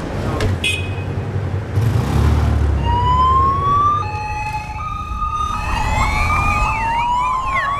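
Police escort sirens: after a low rumble of motorcycle engines, sirens start about three seconds in with several slow rising wails overlapping, joined near the end by a fast yelp.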